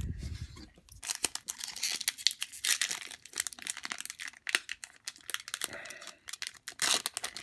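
Foil Pokémon trading card booster pack being torn open and crinkled in the hands: dense crackling and ripping that starts about a second in.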